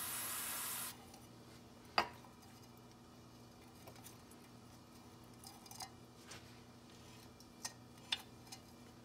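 A short hiss of aerosol QD electrical cleaner sprayed through its straw into the wheel speed sensor bore to clean it, lasting about a second at the start. A sharp click follows about two seconds in, then a few light clicks and taps of hand work on the knuckle.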